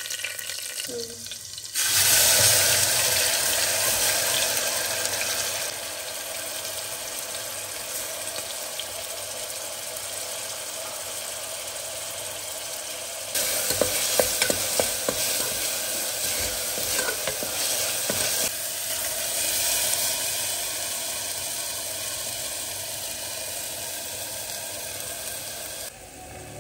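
Food frying in hot oil in a pressure cooker pot. A loud sizzle starts about two seconds in, as chopped pieces hit the oil. A spatula stirs and scrapes against the pot from about halfway through, with the sizzle going on.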